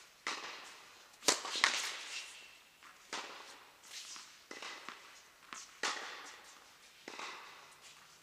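Tennis rally: a series of sharp pops of ball on racket strings and court, roughly every half second to a second, each trailing off with echo, the loudest about a second in.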